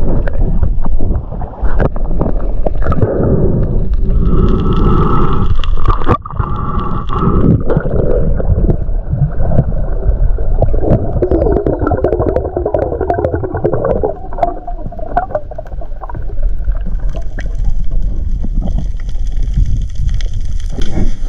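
Muffled underwater gurgling and rumble of water moving against a diving camera's housing as a freediver swims, with scattered small clicks and knocks.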